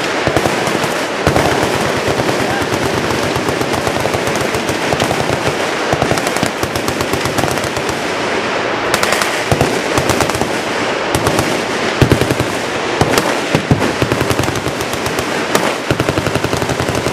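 Several machine guns firing at once in long, overlapping bursts of automatic fire, with louder single cracks standing out now and then.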